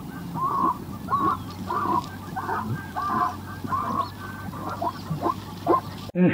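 A quick series of short animal calls, about two or three a second, over a faint steady low hum.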